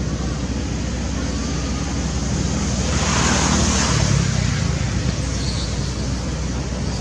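Steady road-traffic rumble and hiss, with a vehicle passing about three seconds in.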